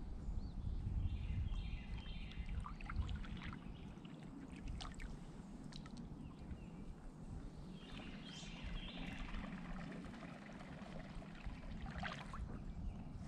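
Water lapping and trickling against the hull of a small fishing boat, over a low rumble, with light clicks of handling. A bird calls a few times in the background.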